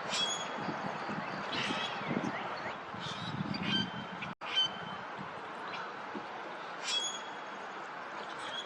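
Waterfowl calling in short, repeated calls over a steady background rumble, with a brief break about four seconds in.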